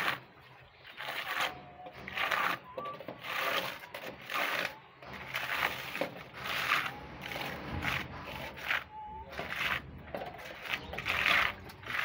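A hand trowel scraping across a masonry wall as it spreads thick textured paint, in repeated strokes about once a second.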